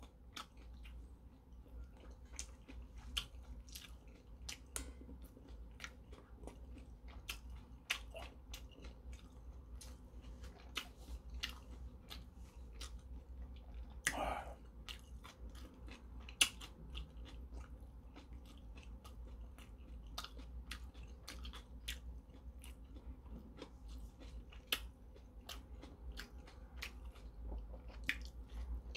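A man chewing and eating dumplings close to the microphone: soft wet mouth clicks scattered throughout, with one brief louder noise about halfway through.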